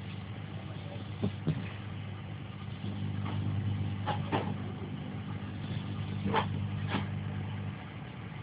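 A pet snoring in its sleep: a steady low rumble that grows louder about three seconds in and stops shortly before the end, with a few faint clicks.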